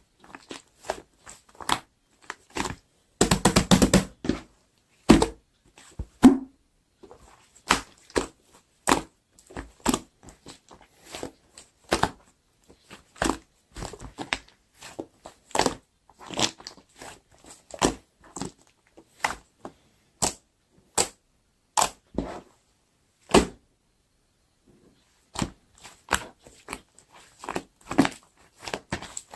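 Hands pressing, poking and stretching a chewy clay-mixed slime: irregular sticky pops and clicks, with a dense crackly run of about a second around three seconds in.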